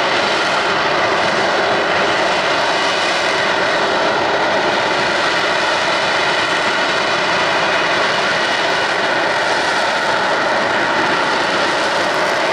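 F-35B's jet engine and lift fan running steadily in a STOVL hover, a loud, even rush of jet noise with faint steady tones in it.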